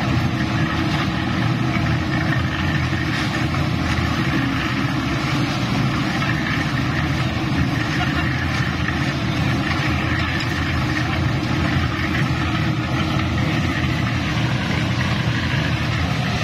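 Portable concrete mixer's engine running steadily, with shovels scraping wet concrete into buckets.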